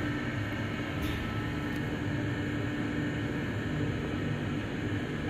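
Mitsubishi Nexiez-MR machine-room traction elevator car travelling upward between floors, heard from inside the cab: a steady ride rumble and hiss with a faint hum that fades out partway through.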